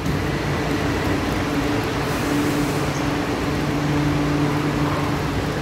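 Steady mechanical hum with a low tone and an even rushing noise from a rubber-tyred medium-capacity metro train standing at the platform with its doors closed.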